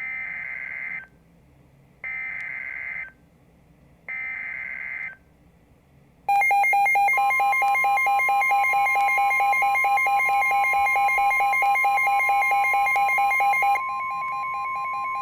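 Emergency Alert System SAME header: three one-second bursts of warbling digital data tones, about two seconds apart. About six seconds in, a loud, steady alert attention tone starts; it drops in level near the end. Together they announce a new severe thunderstorm warning.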